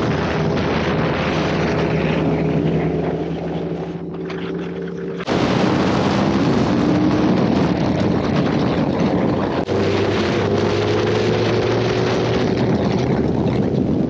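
Inline-four sport-bike engines heard from the rider's seat at speed, running steadily under wind rush: a Suzuki Hayabusa, then a Yamaha R1, then the Hayabusa again. The engine note changes abruptly about five seconds in and again near ten seconds, and climbs slowly in the last few seconds.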